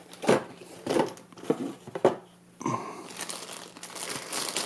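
Plastic packaging being handled and crinkled while unboxing: a few sharp crackles in the first two seconds, a short pause, then a softer continuous rustle.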